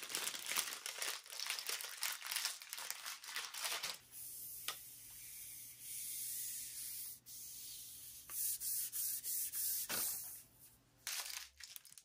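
Paper packaging rustling and crinkling as a stick-vacuum wand is pulled out of its paper sleeve and the wrapping is handled. The first few seconds are crackly crinkling; from about four seconds in it gives way to a smoother rubbing hiss, with a light knock or two.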